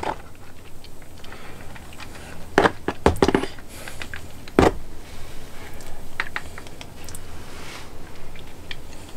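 Handheld static grass applicator being shaken over model scenery: scattered light taps and rattles, with a few sharper knocks about two and a half to three seconds in and a single louder knock near the middle.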